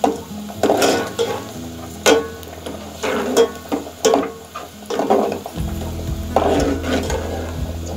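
A steel ladle stirring sliced onions frying in oil in an aluminium pot, with repeated scrapes and clinks of metal on metal over a light sizzle.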